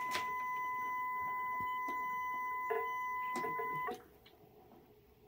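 A steady electronic beep at one pitch that cuts off abruptly about four seconds in, with a few faint rustles of gift wrap under it.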